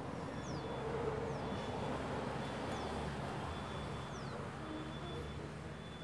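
Quiet garden background: a steady low hum, with a bird's faint short falling chirps every second or so.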